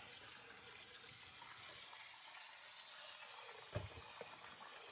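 Kitchen faucet running into a glass bowl of corn kernels as a hand stirs them to rinse them: a steady, soft splashing hiss. A single knock sounds a little under four seconds in.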